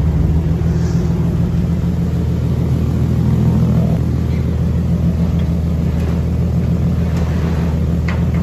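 Infiniti G37's 3.7-litre V6 idling steadily through its ARK Grip exhaust, with a couple of short clicks near the end. The exhaust is leaking at a flex pipe and at a mid-pipe flange whose gasket has given out.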